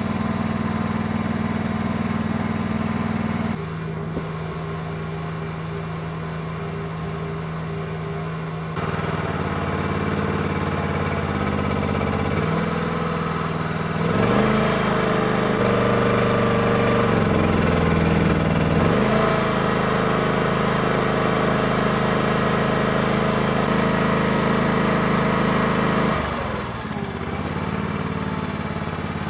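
Small engine of a micro excavator running steadily while its hydraulic boom is worked to lift a heavy milling machine. The engine note steps to a new pitch several times and gets louder for a stretch in the middle.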